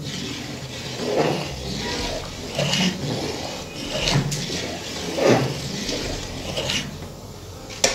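Long metal ladle stirring basmati rice and water in a large aluminium pot, the rice-laden water swishing and sloshing in repeated strokes about every second or so.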